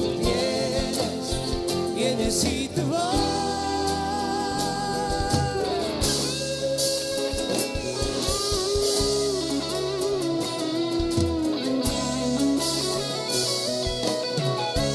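Live band performance: singing over guitar and drum kit. About three seconds in, the singer holds one long note with a slight vibrato for about three seconds.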